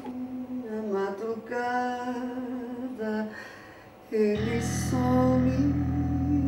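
A lone voice sings a slow wordless melody of held, gliding notes. About four seconds in, a deep sustained low drone enters beneath a held sung note and carries on.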